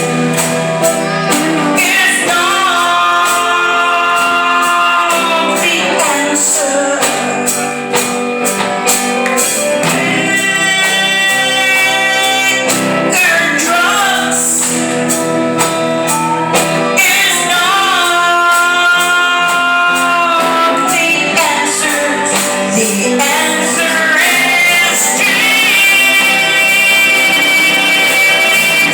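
A woman singing with instrumental backing, in phrases that end on long held notes.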